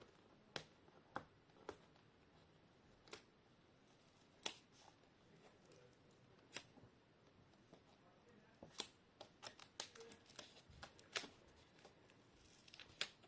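Faint, scattered light clicks and taps of hands working at a laptop screen, freeing its LCD cable, with a quicker run of clicks about two-thirds of the way through.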